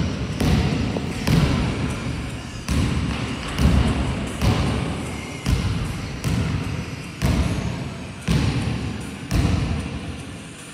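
Basketball dribbled on a hard gym floor, about one bounce a second, each bounce echoing through the large hall. The bouncing stops near the end.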